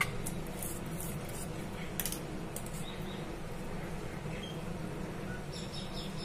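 Tomato sauce simmering in an aluminium kadai on a gas stove: scattered small pops and crackles over a steady low hum, with a few faint high chirps.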